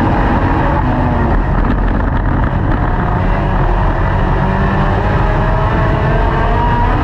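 Dirt-track race car's engine running hard at racing speed, heard from on board. It is loud and steady, its pitch wavering slightly.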